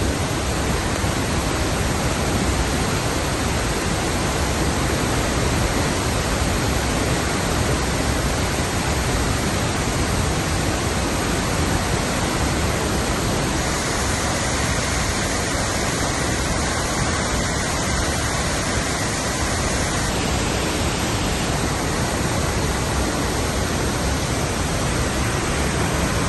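Heavy rain and floodwater rushing: a loud, steady, unbroken water noise, its tone shifting slightly about 14 seconds in and again about 20 seconds in.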